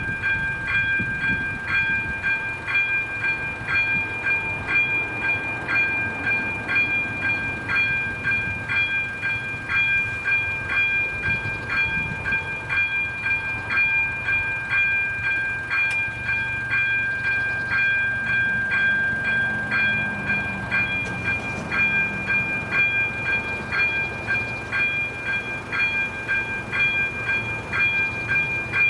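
Level crossing's electronic warning bell ringing in a steady, even beat over the low rumble of a train running past the crossing.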